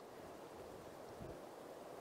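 Faint steady outdoor wind hiss, with a brief low rumble about a second in.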